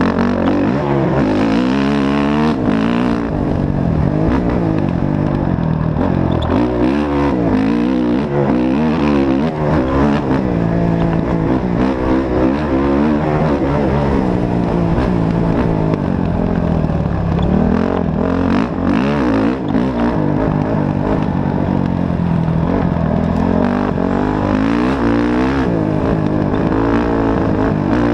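Off-road race vehicle's engine running hard, its pitch rising and falling again and again as it revs up and backs off.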